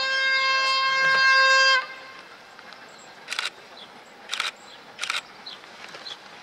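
Horn of an LDH1250 diesel-hydraulic shunting locomotive, held in one long steady blast as a greeting, cutting off about two seconds in. A few brief sharp clicks follow.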